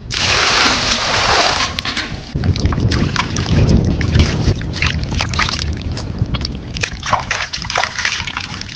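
Water pouring into a basin for about a second and a half, then beef tongues being washed by hand, sloshing and splashing in the water.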